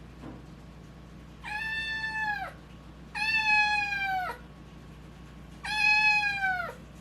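Young cat meowing three times, each meow about a second long, holding its pitch and then falling at the end.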